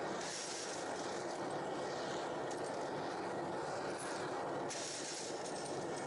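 Metal-melting furnace running with a steady, even rushing noise while aluminium melts in its crucible.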